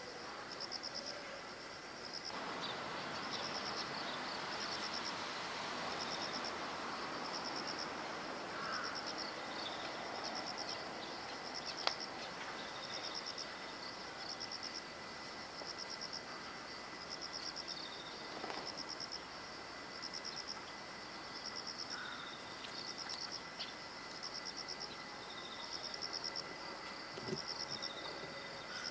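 Outdoor insect chorus: a short pulsed chirp repeating about once a second over a steady high hiss, with a wash of broader background noise during the first ten seconds or so.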